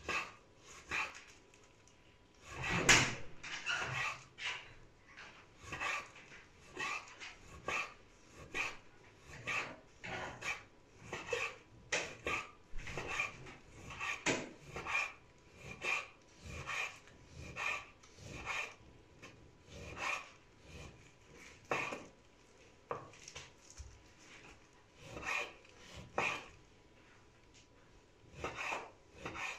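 Chef's knife slicing raw beef on a wooden cutting board: a steady run of short cuts with the blade knocking on the board, a little over one a second. The loudest knock comes about three seconds in.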